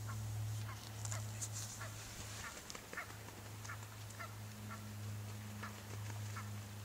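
A flock of Canada geese giving short calls, one every half second to a second, over a steady low hum.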